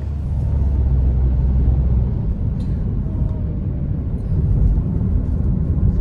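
Steady low rumble of a car driving, heard from inside the cabin.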